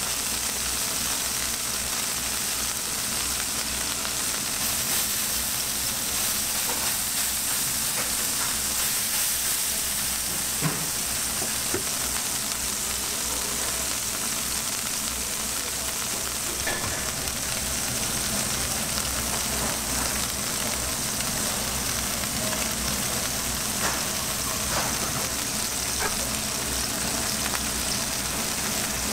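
Beef burger patties sizzling steadily in hot fat on a flat-top griddle, a constant high hiss with a few faint clicks now and then.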